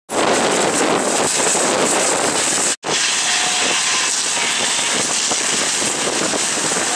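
Loud steady rushing noise of an aircraft-fire live-burn drill, broken by a brief dropout about three seconds in.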